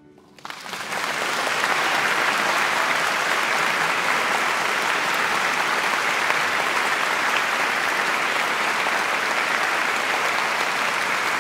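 Concert audience applauding: the clapping swells in within the first second, then stays dense and steady.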